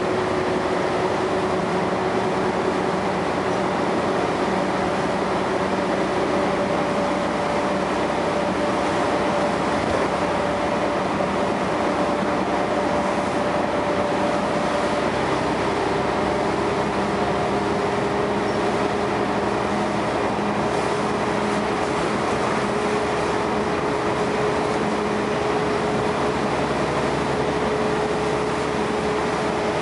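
Scania L113CRL bus under way, heard from inside the saloon: steady engine and road noise with the whine of its ZF gearbox over it. The whine shifts in pitch a couple of times and climbs slowly through the second half.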